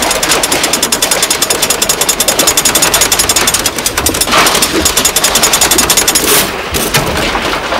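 A loud, rapid mechanical hammering rattle, about fifteen to twenty beats a second, that stops about six seconds in, followed by a brief rush of noise.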